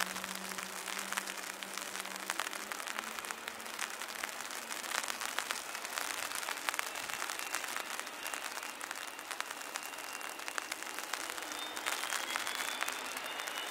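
Heavy rain pattering in a dense crackle. From about twelve seconds in, a jet engine's high whine rises as it spools up.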